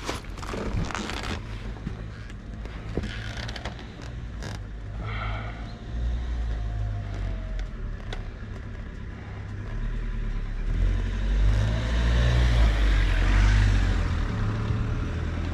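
Honda CBR650R's inline-four engine running at low revs, getting louder from about ten seconds in along with a rush of wind-like noise. A brief high ringing tone sounds about five seconds in.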